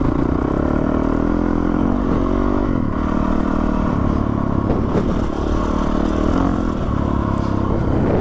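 Yamaha WR450F single-cylinder four-stroke dirt bike engine running while riding a forest trail, its note rising and falling with the throttle.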